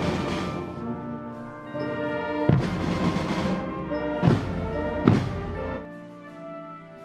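Slow, solemn brass music: held brass chords punctuated by heavy drum and cymbal strikes, three of them in the middle, then dropping to softer held notes near the end.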